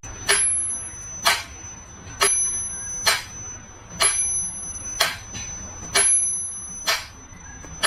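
Sharp clicks at an even beat of about one a second, with a thin, high steady tone sounding between most of them.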